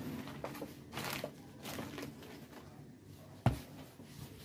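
Faint rustling and handling noises over a low steady hum, then a single sharp knock about three and a half seconds in, as a CRT TV circuit board and the camera are handled and set in place.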